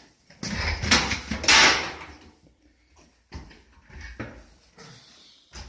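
Handling noise from the industrial vacuum's barrel as its latch and lid are worked: a loud scraping clatter from about half a second to two seconds in, then a few lighter knocks.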